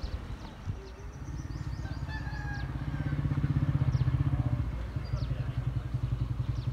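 A motorcycle engine running with a fast, even putter; it grows louder until about four seconds in, then eases slightly. Faint bird chirps sound above it.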